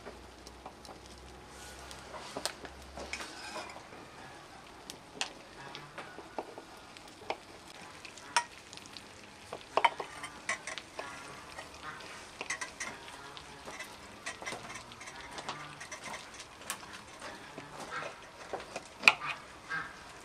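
Freshly syruped baklava crackling and sizzling in its metal tray: a faint hiss under many irregular sharp pops, as the syrup soaks into the pastry and a knife is drawn through the cut lines.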